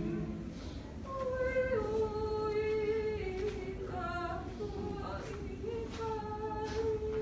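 Slow hymn singing, led by a high voice holding long notes and moving to a new pitch every second or two, with lower voices underneath.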